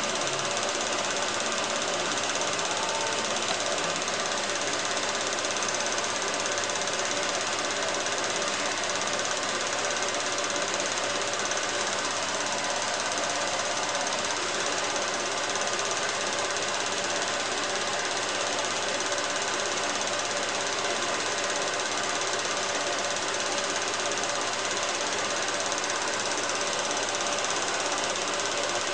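Steady whirring clatter of a 16mm ciné film projector running, its film-advance mechanism rattling rapidly and evenly without a break.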